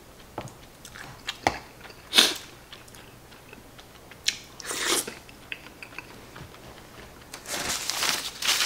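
Close-up eating sounds: a spoon clinking and scraping against a bowl of rice and omelette, a mouthful taken and chewed, then a tissue pulled and rustled near the end.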